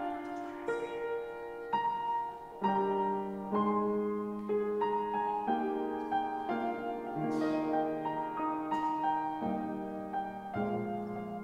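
Slow instrumental keyboard music: a melody of held notes over chords, the notes changing about once a second.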